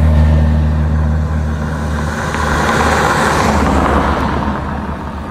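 A Citroën Berlingo van drives past close by. Its low engine hum fades after about two seconds, while tyre and road noise swells to a peak around three seconds in and then dies away as it goes by.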